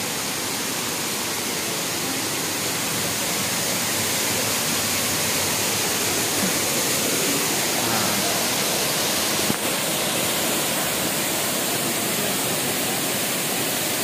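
Waterfall pouring onto boulders close by: a loud, steady rush of falling water.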